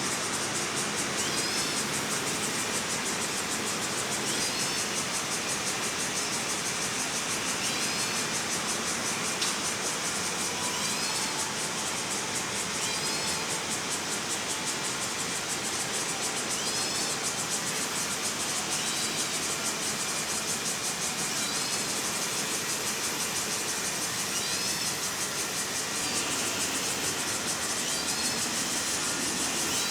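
Steady high hiss of park ambience, with a short high bird chirp repeating every few seconds.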